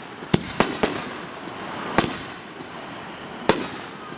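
Aerial firework shells (Pyro Junkie Neon Shells) going off in sharp, echoing booms: three in quick succession in the first second, then one about two seconds in and another near three and a half seconds.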